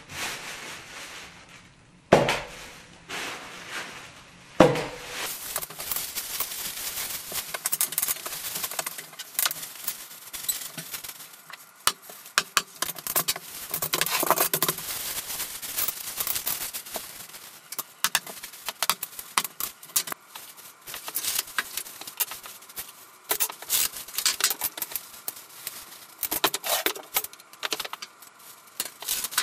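A hand staple gun (tacker) snaps loudly twice, about 2 and 4.5 seconds in, fastening insulation batts to wooden ceiling joists. A long run of crinkling and small clicks follows from the plastic film wrapping the glass-wool batts as they are handled.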